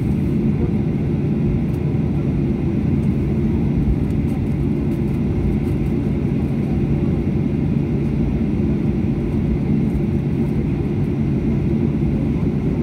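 Inside an airliner cabin while taxiing: the jet engines at low taxi thrust make a steady low rumble with a steady low hum beneath it.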